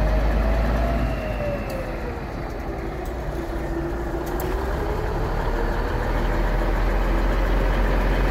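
Cummins 400 inline-six diesel in a 1978 Autocar dump truck running under the load of its hydraulic hoist pump as the dump box is raised. Over the steady engine rumble a whine sags in pitch about two seconds in, then climbs back up by the end.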